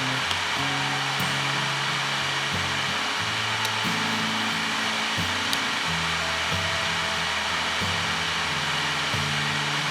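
Small SilverCrest ceramic heater running, its fan blowing with a steady airy hiss, with background music that has a changing bass line.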